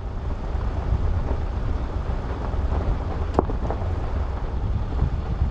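Van driving slowly over a washboard gravel road: a steady heavy rumble of tyres and suspension over the ruts, with small rattles and one sharp knock about three and a half seconds in. The rough road is shaking the van, rattling its cupboards.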